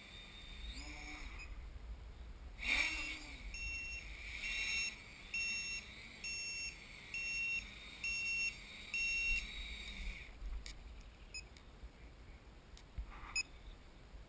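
A small electronic buzzer on the quadcopter beeps six times at even intervals, about once a second, the pattern of a LiPo low-voltage alarm. Under it the quadcopter's electric motors run with a faint whine, swell twice in the first few seconds, and stop about ten seconds in.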